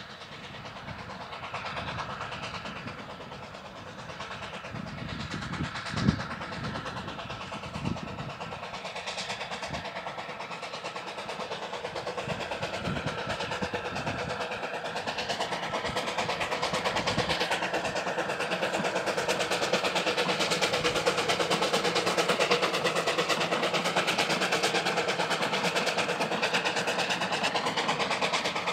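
Narrow-gauge steam locomotive hauling a train of coaches, growing steadily louder as it approaches. There is a sharp knock about six seconds in and another about two seconds later.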